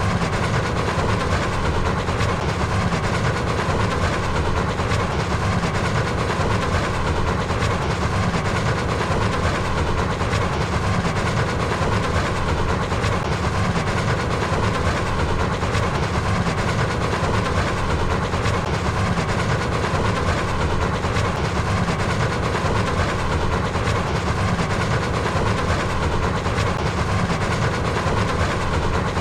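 A train running along the rails, a steady, unbroken running noise that keeps the same level throughout.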